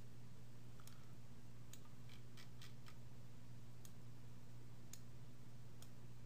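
Faint, sharp computer-mouse clicks, about nine scattered irregularly over several seconds, over a steady low hum.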